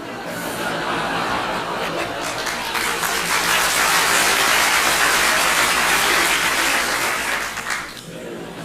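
A studio audience laughing together, swelling to a peak over a few seconds and dying down near the end, with some clapping mixed in.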